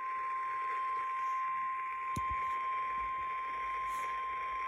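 NOAA Weather Radio warning alarm tone: a single steady high tone, about 1 kHz, over radio hiss. It signals that a warning broadcast, here a tornado emergency, is about to follow. A brief click sounds about two seconds in.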